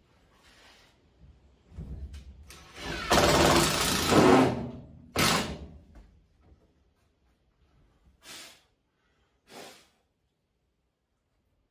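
Cordless drill running: one run of about three seconds, then three short bursts.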